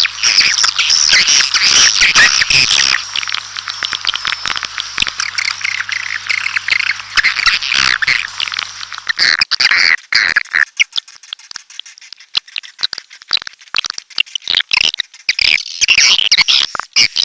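Recorded swiftlet calls: dense rapid twittering chirps and clicks that thin out to scattered clicks about halfway through, then build again near the end, over a low hum in the first half.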